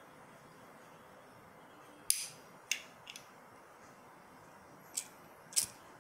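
Sharp metallic clicks from a Zippo-style flip-top lighter being handled, a handful of them: one with a short ring about two seconds in, two or three lighter ones just after, and a pair near the end.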